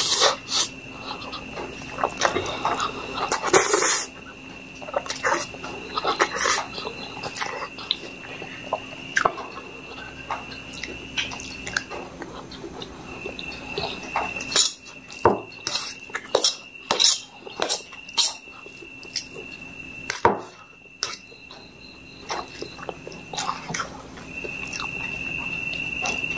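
Close-miked eating of instant noodles: a steel fork clinking and scraping on a steel plate while noodles are twirled, then slurped and chewed, in irregular wet clicks and smacks. A thin steady high tone hums behind it, dropping out for a moment around the middle.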